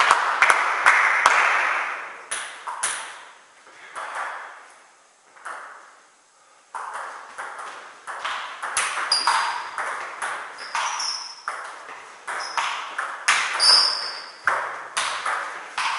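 Table tennis ball clicking off bats and table in rallies: a run of clicks dies away in the first few seconds, a short lull follows, then a new rally of quick clicks starts suddenly about seven seconds in and runs on, with a few short high squeaks among them.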